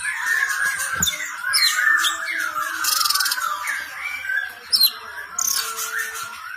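Cucak cungkok bird singing: an unbroken run of quick, chattering warbles laced with sharp high whistles that drop in pitch, and a short buzzy rasp about three seconds in.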